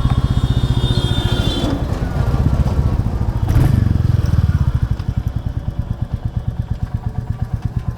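Royal Enfield Classic 350's single-cylinder engine idling with an even, rapid thump, about seven beats a second. A short clunk comes about three and a half seconds in, and the idle grows quieter about five seconds in.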